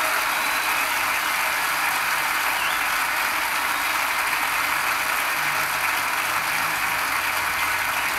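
Large arena audience applauding, a dense, steady clatter of clapping heard off a television broadcast.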